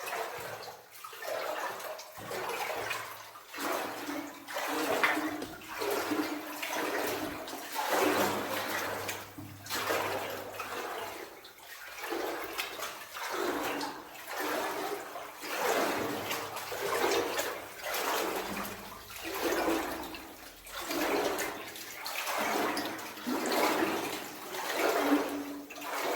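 Boots wading through water in a flooded mine passage, a slosh and splash with each stride, roughly one every second and a half.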